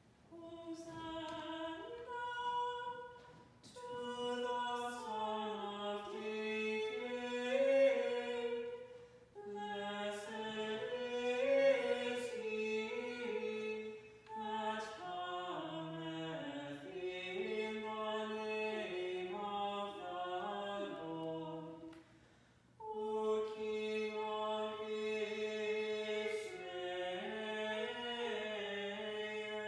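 Unaccompanied liturgical singing by voices alone, in sung phrases broken by short pauses, with no instruments.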